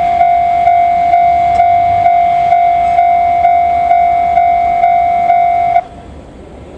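Japanese railway level-crossing alarm ringing its electronic bell tone, an even strike about twice a second, then cutting off suddenly near the end.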